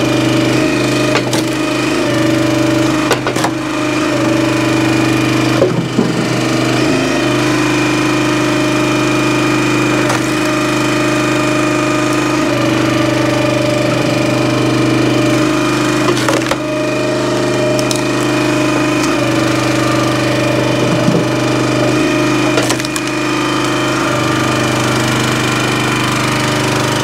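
Briggs & Stratton small gas engine on a hydraulic log splitter running steadily, with a few sharp cracks and knocks of firewood being split and handled.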